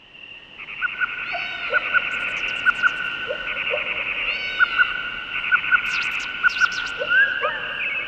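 A flock of birds chirping and calling together: many short overlapping chirps and whistled notes over a steady high trill, fading in during the first second.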